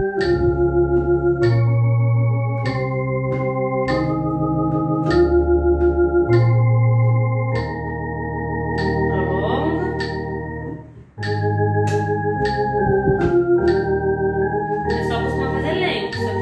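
Electronic organ playing a hymn in sustained chords with a pulsing tremolo, the chords changing about once a second. The playing breaks off briefly about eleven seconds in, at a breath mark between phrases, then runs on. A metronome clicks a steady beat throughout.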